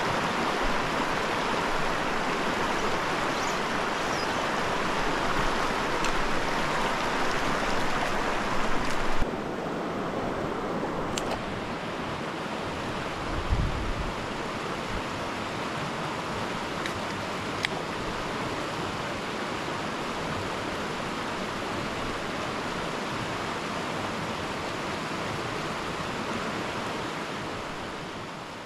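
A small, fast mountain stream rushing over rocks: a steady, even rush of water. Its sound shifts slightly about nine seconds in, there is a single dull thump a few seconds later, and it fades out at the end.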